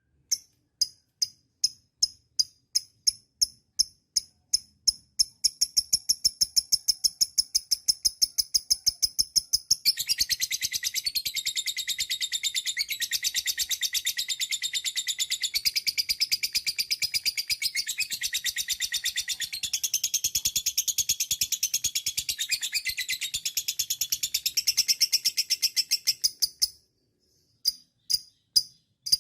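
Lovebird 'ngekek' song, high and sharp. Single chirps come evenly spaced at first and quicken into a long, fast, continuous chattering trill lasting about sixteen seconds. The trill cuts off abruptly and spaced chirps resume near the end.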